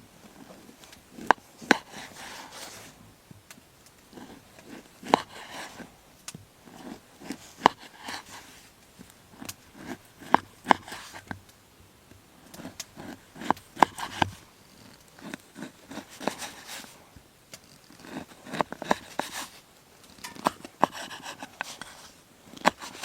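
Irregular sharp clicks and knocks with scraping and rustling in between, as objects are handled by hand.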